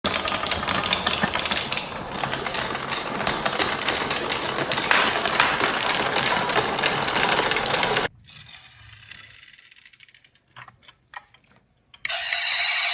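Many marbles rattling and clicking down a wooden marble-run track in a dense clatter that cuts off abruptly about two-thirds of the way through. A few faint clicks follow, then music starts near the end.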